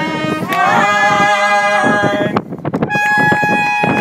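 Trumpet holding two long notes, the first starting about half a second in and the second starting about a second before the end, with a short break between them.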